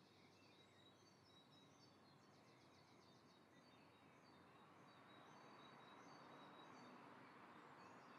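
Near silence: faint background hiss with a few faint, high, repeated chirps, like distant birds.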